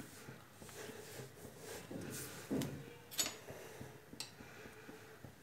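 Dough being kneaded by hand on an oiled stone kitchen counter: faint pressing and rubbing, with a few light clicks and knocks, the loudest about three seconds in.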